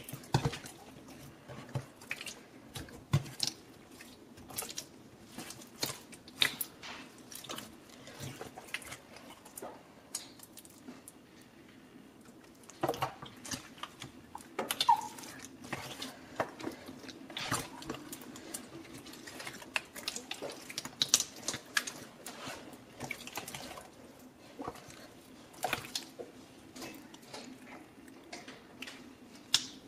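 Clear slime being pressed and stretched by hand, making irregular wet clicks, pops and squelches.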